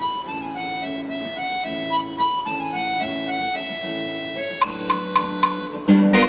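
Incidental stage music: a reedy melody of short stepping notes over held low chords. Brighter high tones and a few sharp accents join in near the end.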